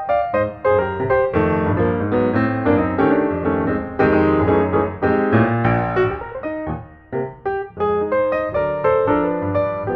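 Background piano music with quick, many-note phrases.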